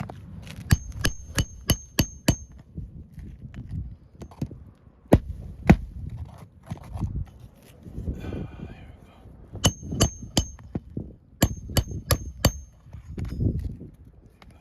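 Hammer driving roofing nails into asphalt shingles: quick runs of five or six sharp, ringing metal strikes, with a few single blows and pauses between the runs.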